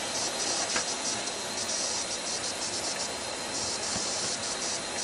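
Steady hiss of people sliding down a snow-covered slope, snow scraping under them as they go.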